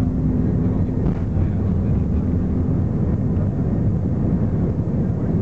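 Airbus A320's jet engines running at takeoff power, heard inside the cabin from a seat over the wing as the airliner takes off: a loud, steady low rumble, with a steady hum in it fading out during the first second.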